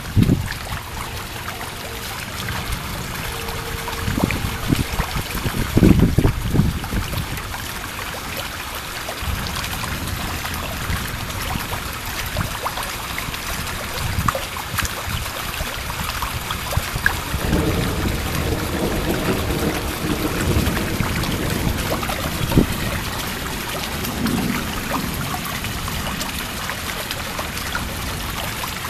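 Heavy thunderstorm rain falling steadily, with low rumbles swelling about six seconds in and again in the second half.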